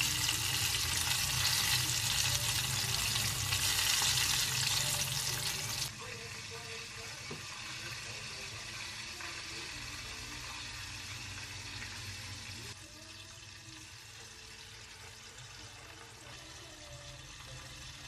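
Breaded chicken deep-frying in hot oil, a steady loud sizzle; about six seconds in it cuts off suddenly to the quieter sizzle of butter melting in a frying pan as a wooden spatula pushes it around.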